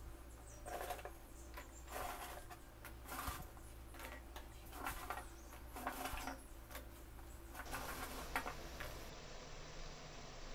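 Seedai (rice-flour dough balls) sizzling in hot oil as they are deep-fried a second time after cooling, in uneven crackling bursts that settle into a steadier sizzle near the end.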